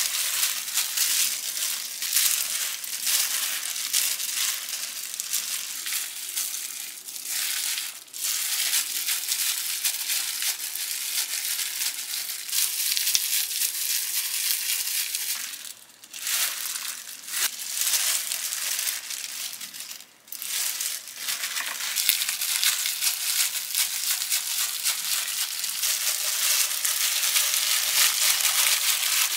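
Disposable plastic gloves crinkling and rustling as hands spread cooked rice over a sheet of dried seaweed (gim) and then roll kimbap on a perforated plastic mat. A dense, continuous crackle with a few short pauses.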